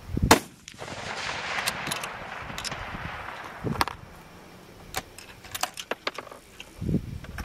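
A rifle shot fires loudly about a third of a second in, its report rolling away over the range for a few seconds. A second, fainter shot follows near four seconds, then a few short clicks.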